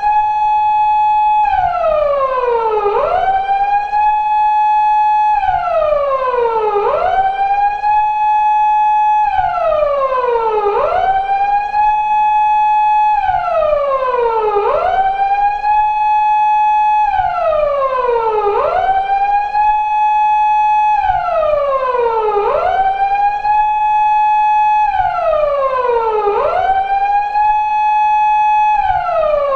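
Japanese police car siren of the 2000s type used on 170- and 180-series Toyota Crown patrol cars, wailing in a repeating cycle of about four seconds: a quick rise to a high tone held for about a second and a half, then a slow falling glide back down. The cycle repeats evenly about seven times, without a break.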